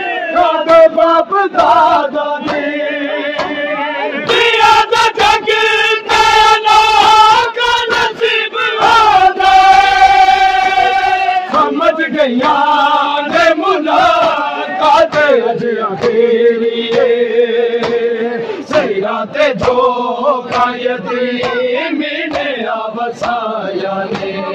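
Men's voices chanting a noha in long held, melodic lines, with a crowd of bare-chested mourners beating their chests in matam, the hand-slaps landing in a steady rhythm.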